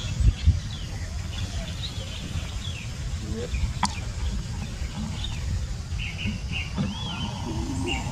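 Scattered short high chirps over a steady low rumble, with one sharp click about four seconds in and a lower wavering call near the end.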